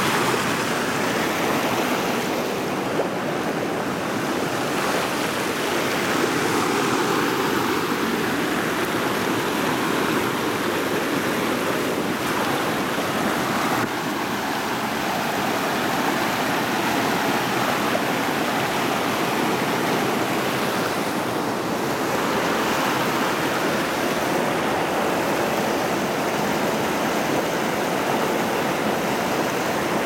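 Rushing water of a rocky creek tumbling over small cascades: a steady, unbroken rush.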